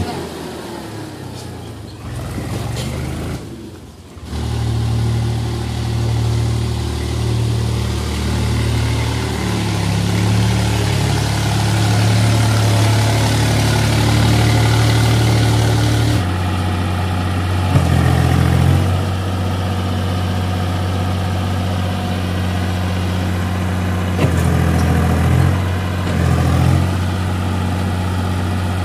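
Swaraj 834 XM tractor's three-cylinder diesel engine running hard under load as the tractor churns in deep mud, trying to pull free. The sound dips briefly about four seconds in, the engine note changes about halfway through, and it gets a couple of short louder pushes of throttle later on.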